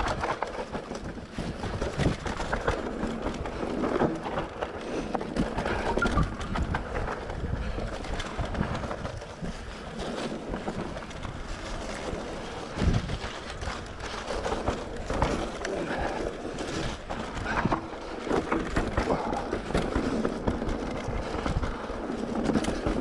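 Mountain bike rolling down a rough grassy dirt track: tyre noise with frequent knocks and rattles from the bike over bumps, and some wind on the microphone.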